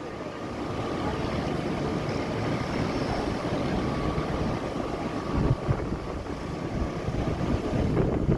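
Storm-force wind gusting and buffeting the microphone, a heavy rumbling rush that surges louder about two thirds of the way through.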